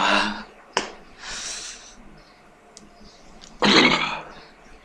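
A man coughing and snorting, with a hissing breath through the nose in between, as lemon juice dripped into his nose stings. A loud burst comes at the start, a hissing breath about a second in, and another loud burst near the end.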